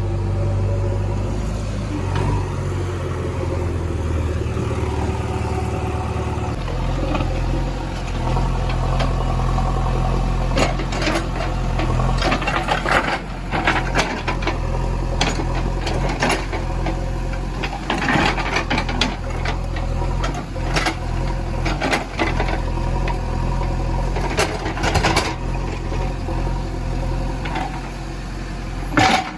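Heavy diesel machinery engine running steadily, its pitch changing a few seconds in, with repeated sharp metal clanks and rattles through the second half.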